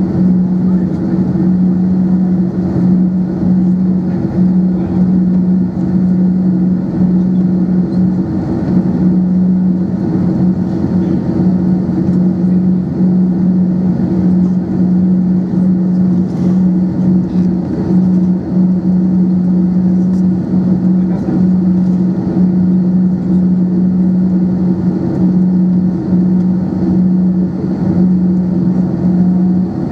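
Cabin noise of an Airbus A321-200 taxiing, heard inside at a window seat over the wing: the engines run at taxi idle in a steady drone with a strong low hum. A faint rising tone comes in near the end.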